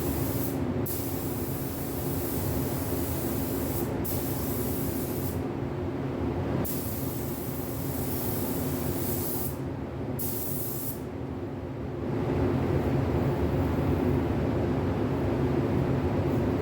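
Spray gun hissing as clear coat is sprayed, stopping briefly several times as the trigger is let off. Under it runs the steady hum of a loud spray-booth extraction fan.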